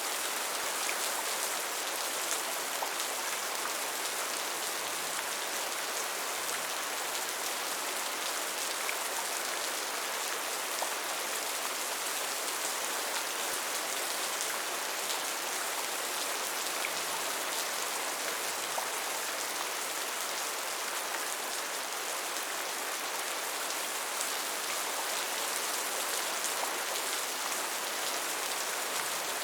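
Steady rain falling, a dense even hiss with many fine scattered drop ticks.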